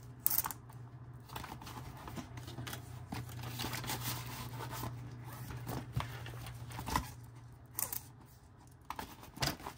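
Paper banknotes and envelopes being handled, rustling quietly, with scattered light clicks and taps. A faint steady hum lies underneath.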